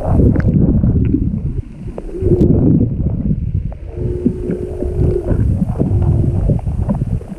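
Humpback whales singing, heard underwater: a few steady moaning tones, one held for about a second in the middle, under louder low rumbling and gurgling water noise on the microphone.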